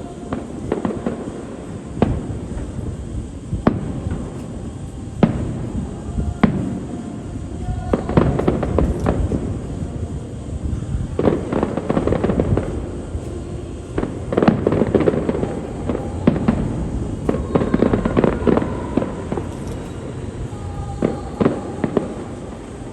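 Aerial fireworks display: sharp shell bursts every second or two, with dense clusters of crackling between them.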